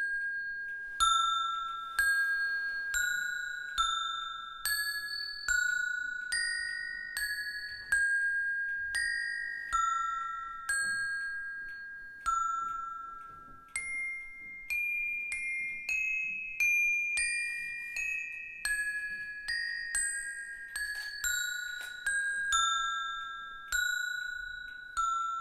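A set of eight metal bars laid on stone slabs, struck one at a time with small metal rods, each note ringing and dying away. The notes come a little over one a second, stepping up and down like a peal of eight church bells; the notes in the middle of the sequence are higher.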